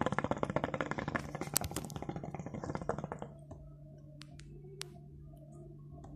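Hookah water bubbling in a quick crackling gurgle as smoke is drawn through the hose, for about three seconds, then stopping. A faint steady low hum runs underneath.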